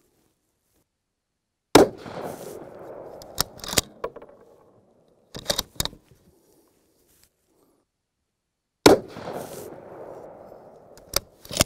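Two rifle shots from a bolt-action Ruger Precision Rifle in 6.5 Creedmoor firing Norma 130-grain Scirocco II ammunition, about two seconds in and again about nine seconds in. Each crack trails off in an echo lasting a couple of seconds. Short metallic clicks follow each shot as the bolt is worked.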